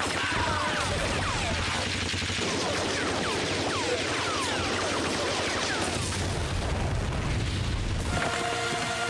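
Sustained rapid gunfire with bullets striking and sparking off metal pipes, many short falling whines running through it. About eight seconds in, it gives way to music.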